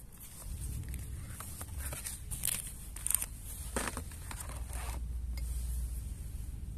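Cardboard chocolate box being handled and laid down: a string of short rustling and scraping strokes, over a low rumble.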